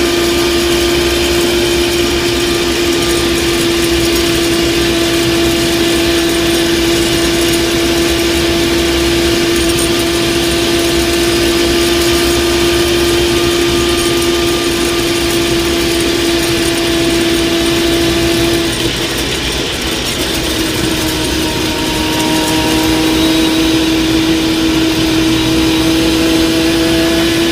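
Car transmission whining: a steady high whine over engine and road noise. It drops away after about eighteen seconds and returns a little lower, slowly rising. It is an abnormal transmission noise that the owner fears means the transmission is blown.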